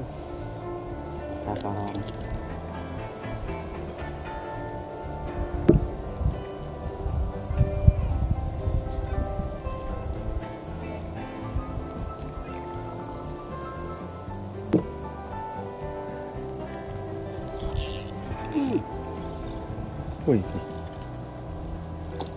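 A steady, high-pitched insect chorus drones without a break. A few light knocks come through underneath it.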